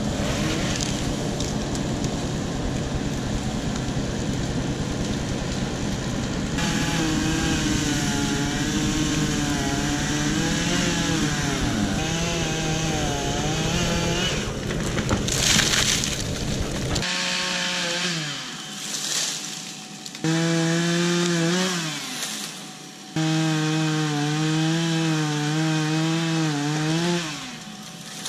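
Chainsaw running and cutting into trees, its pitch sagging and recovering again and again as the chain loads up in the wood. The sound breaks off abruptly several times in the second half.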